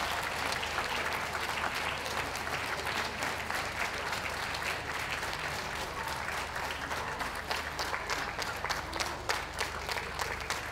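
Ringside crowd applauding, a steady patter of many hands clapping that grows sparser, with more separate claps, in the second half.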